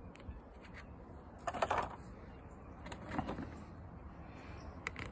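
Plastic model-kit sprues and the kit's box being handled and shifted, giving two short rustles and a couple of light clicks near the end.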